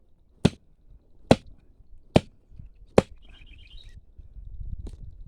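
Hand digging tool chopping into soil and tree roots: four sharp strikes a little under a second apart, then a fainter one, with scraping and rumbling handling noise near the end. The tool is working loose a buried target stuck among the roots.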